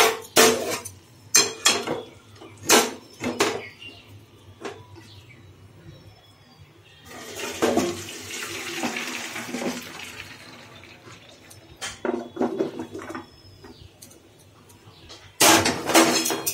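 Hot water and blanched cauliflower stalks and leaves poured from a steel pan into a steel colander in a sink: a rush of draining water for about three seconds midway. Clanks and knocks of the metal pan and colander come before and after it, the loudest just before the end.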